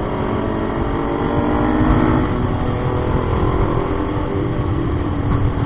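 Motorcycle engine running steadily under way, with wind rumble on the helmet microphone.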